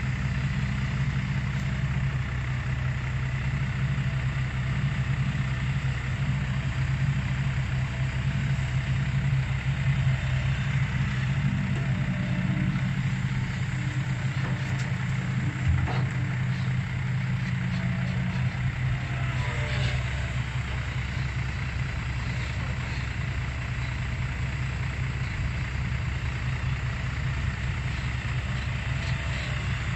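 Diesel engine of a Kobelco SK200 excavator running steadily, with a few faint rising and falling whines partway through and a single short knock about sixteen seconds in.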